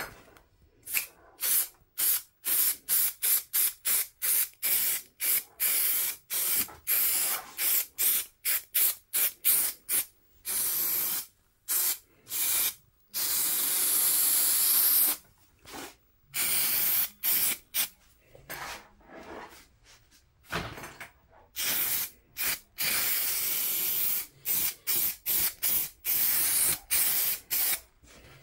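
Aerosol can of spray adhesive (contact carpet glue) hissing in dozens of short stop-start bursts, a few held for one to two seconds, as glue is sprayed across a wooden speaker baffle board.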